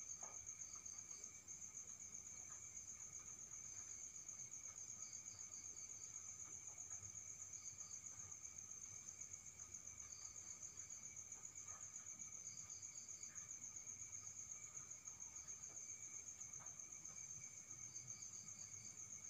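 Faint night insects: crickets chirping, one a high, continuous, finely pulsing trill, with short groups of lower chirps from another cricket now and then.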